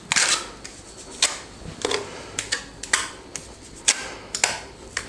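A trowel spreading stove-laying mortar onto a red brick: about a dozen short scrapes and taps at irregular intervals as the mortar is buttered on.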